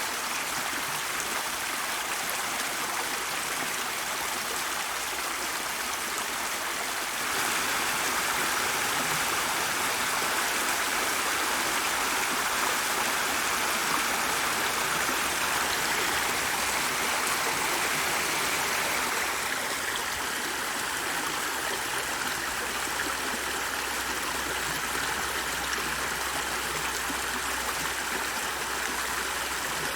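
Stream water flowing in a continuous, even babble. It grows a little louder about seven seconds in and shifts in tone around twenty seconds in.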